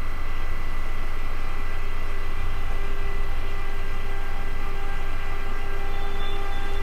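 Electric double-deck passenger train pulling slowly into the station: a steady low rumble with several thin, steady whining tones above it.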